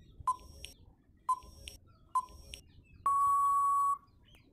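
Quiz countdown timer sound effect: three short beeps about a second apart, then a long steady electronic tone lasting about a second, signalling that time is up.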